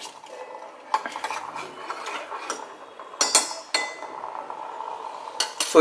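A metal spoon stirs hot coffee with melted butter and coconut oil in a stainless steel pot, clinking against the sides a few times.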